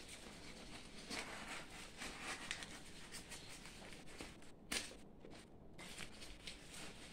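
Rustling and scraping as a plastic-wrapped, taped PVC pipe is turned and handled, with one sharp click a little over halfway through.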